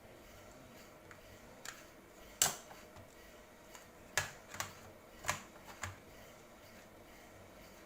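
Laptop parts being handled: about six short, sharp clicks and taps, the loudest about two and a half seconds in.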